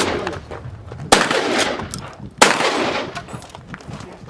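Two shotgun shots about a second and a half apart, each followed by a long echoing tail. These are shots in an IPSC shotgun competition stage.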